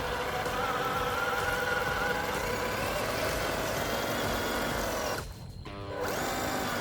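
Electric motor and gearbox of an MN128 off-road RC truck whining as it is driven, the pitch wavering up and down with the throttle, and cut off abruptly about five seconds in; music plays along with it.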